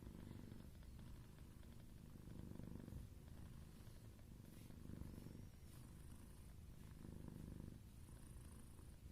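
Cat purring, faint and steady, swelling and fading with each breath about every two and a half seconds.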